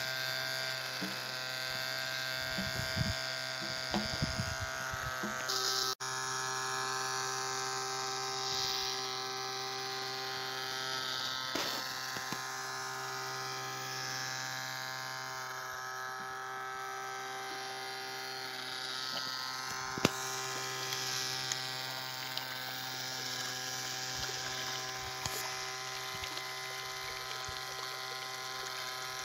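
Small DC motor on a home-made plastic-bottle boat running steadily with an even electric buzz. The sound drops out briefly about six seconds in, and there is one sharp click about twenty seconds in.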